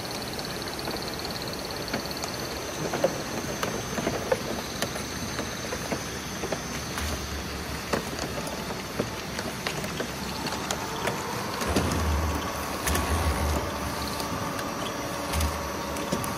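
Automatic bottle filling, capping and labeling line running, with a conveyor carrying 5-litre plastic oil bottles through a labeling machine. It is a steady machine hum with scattered clicks and knocks and a few low thumps, and a steady whine comes in about two-thirds of the way through.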